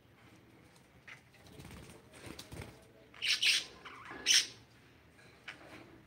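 Pet budgerigars on a wire cage: two short, loud bursts of wing flapping and harsh chirping, about three seconds in and again a second later, with faint rustling and clicks of feet on the mesh between.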